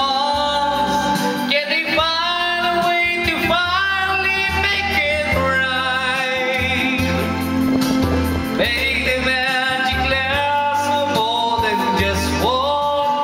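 A man singing into a corded microphone over a music backing track, holding long notes with a wavering vibrato.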